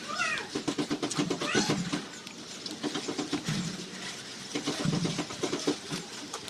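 Butter slime squished and kneaded by hand: a steady run of quick sticky clicks and squelches.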